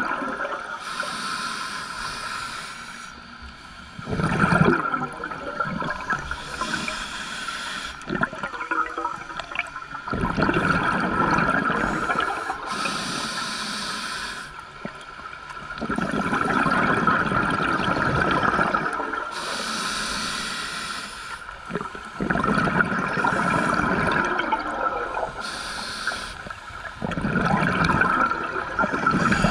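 Scuba diver breathing through a regulator underwater: a hiss on each inhalation, then a burst of bubbling on each exhalation, about one breath every six seconds.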